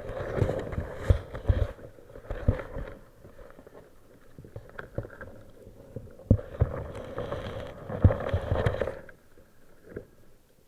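Water noise with sharp knocks in two stretches of about three seconds each, the first right at the start and the second from about six seconds in, then it goes quiet.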